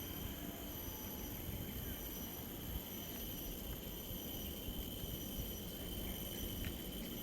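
Wind buffeting the microphone in a steady low rumble, with a few faint steady high-pitched tones running underneath.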